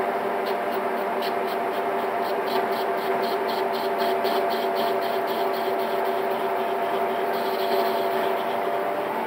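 DIP-300 lathe running under its 2.2 kW brushed DC motor with a steady hum while the cutting tool cuts a spinning metal workpiece. The cut scrapes in an even rhythm about three times a second, then turns to a short continuous hiss near the end.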